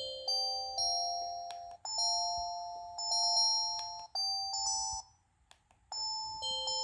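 Preloaded polyphonic ringtone on an LG CG225S cell phone playing a chime-like electronic melody. It breaks off about five seconds in, and after a short pause the melody starts again.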